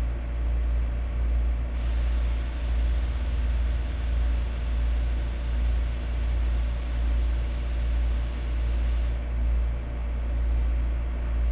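Air hissing out of a John Deere LA115 lawn tractor's front tyre valve as the tyre is let down to 15 psi. The hiss starts about two seconds in, holds steady for about seven seconds and stops sharply, over a steady low hum.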